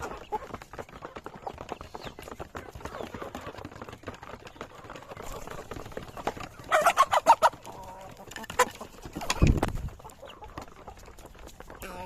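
Chickens clucking, with a loud burst of rapid clucks about seven seconds in. A loud low thump follows a couple of seconds later, over a background of small scattered clicks.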